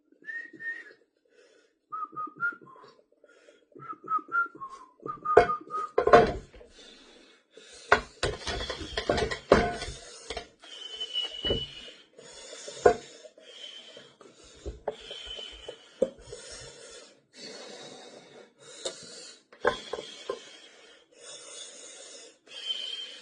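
Close-up eating sounds: a few short whistle-like notes, then clicks and knocks, then repeated short crunchy, crackly chewing noises about once a second.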